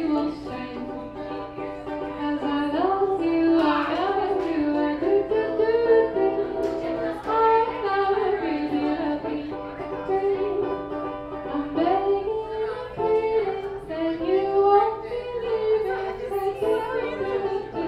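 A woman singing with her own ukulele accompaniment, the sung melody held and gliding over the plucked strings.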